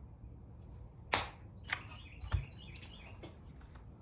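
A few sharp clicks and a dull knock, the loudest about a second in, with faint bird chirps behind them.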